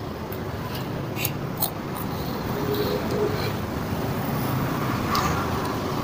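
Steady road traffic rumble from passing vehicles, swelling a little louder about halfway through, with a few light clicks near the start.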